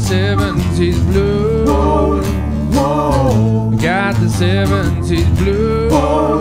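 Small acoustic band playing a blues-rock song: strummed acoustic guitars, an acoustic bass guitar and a keyboard, with a wavering melody line carried over them in short repeating phrases.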